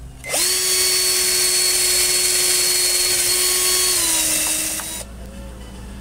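Power drill running at speed for about four and a half seconds, a steady whine that sags slightly in pitch just before it stops.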